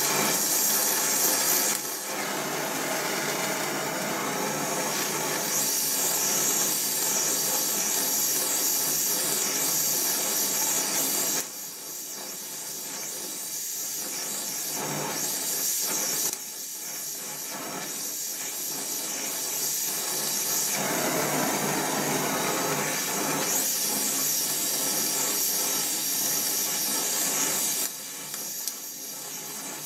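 Gas welding torch flame hissing steadily while welding a pipe with filler wire. The hiss drops suddenly three or four times and builds back up each time.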